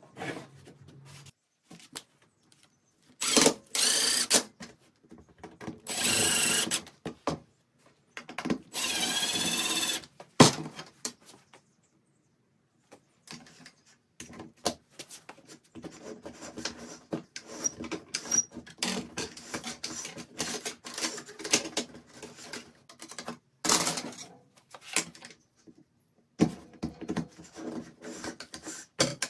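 Three short bursts of a power tool running, each a second or two long, in the first ten seconds. These are followed by a long stretch of light, irregular clicking and rattling as stiff wire is handled and bent on a wooden workbench.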